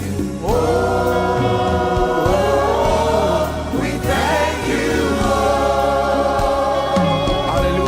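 Gospel choir singing long held notes, sliding up into new notes about half a second and four seconds in, over steady instrumental backing.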